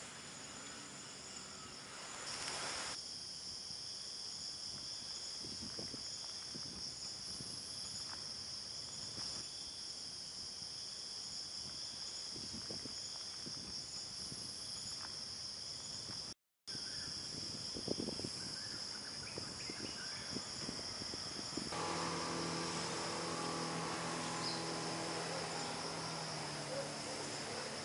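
Insects chirring in a steady high-pitched drone, which cuts out for an instant about sixteen seconds in. A low steady hum joins about two-thirds of the way through.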